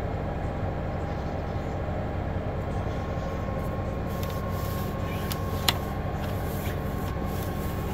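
Samsung front-loading washing machine running with a steady hum, a faint higher whine joining it for a few seconds in the middle. A single sharp tap about two-thirds of the way through.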